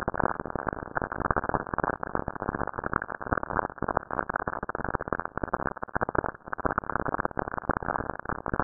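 Saturn lightning radio bursts recorded by the Cassini probe's RPWS instrument and turned into sound: dense, rapid crackling like AM radio static during a thunderstorm. The signal is time-compressed, with two hours of observation squeezed into a few tens of seconds.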